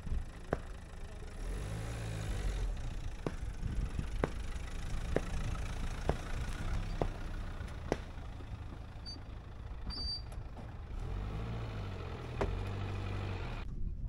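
A car engine running low and steady while the car is manoeuvred up to a small travel caravan's hitch. Light ticks come about once a second throughout.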